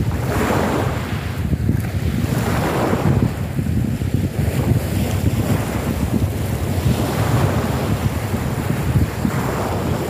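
Small wind-driven sea waves breaking and washing onto a pebble beach, a surge of hiss every two seconds or so, over a constant low rumble of wind buffeting the microphone.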